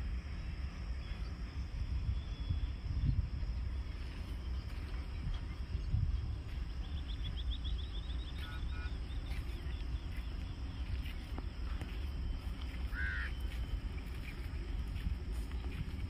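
Low rumble of wind on the microphone with a few faint bird calls: a quick run of high chirps about seven seconds in and a short call about thirteen seconds in.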